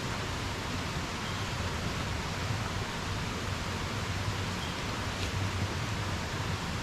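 Steady rushing of a rainforest creek, an even hiss of running water.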